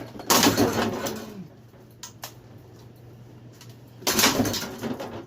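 Two crashing blows on a ceiling fan being smashed, about four seconds apart, each trailing off in about a second of clatter, with a short click between them.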